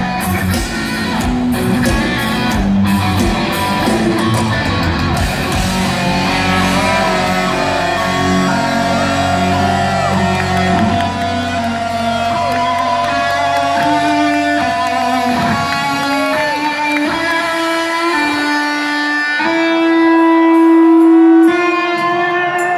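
Heavy metal band playing live, with distorted electric guitar, bass and drums. About six seconds in the drums drop out and the electric guitar carries on with bent and sustained notes over fading bass, ending on a loud held note.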